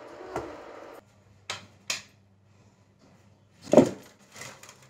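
Plastic kitchen storage containers being handled: two light clicks, then a louder knock about four seconds in as a plastic jar is set down in a steel plate, followed by a few small taps.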